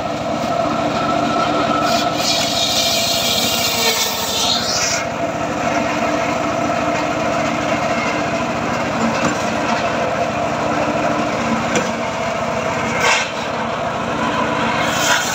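Homemade engine-driven circular sawbench running steadily while its blade cuts through a teak log. The cutting noise is harsh for the first five seconds or so, then eases, and picks up again near the end.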